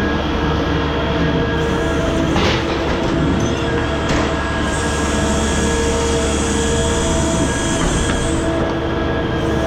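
Heavy hydraulic machinery running steadily, a low engine drone under a whine of several steady tones, with a couple of sharp metal knocks in the first half and a high hiss of hydraulics or air from about five to eight and a half seconds in.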